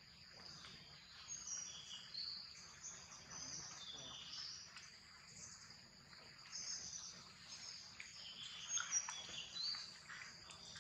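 Forest ambience: a steady high-pitched insect drone with many short bird chirps scattered throughout, a little busier near the end.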